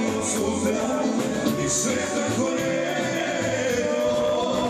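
Serbian folk band music: a song with a vocal over instruments and a steady, quick beat.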